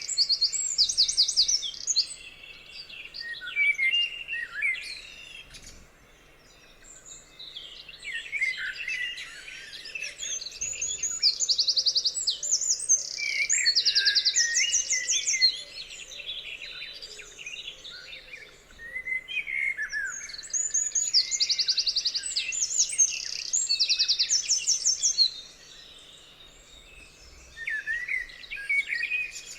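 Several songbirds singing together, with loud phrases of fast, high repeated notes coming every few seconds among softer chirps and warbles.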